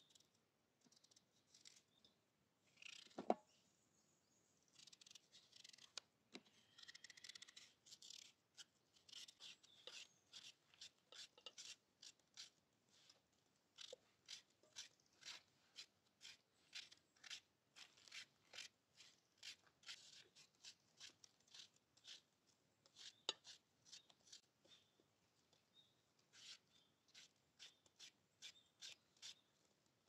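Small knife cutting through firm watermelon rind: a steady run of short, crisp cuts, about two a second, as the rind is peeled and diced. One louder knock about three seconds in.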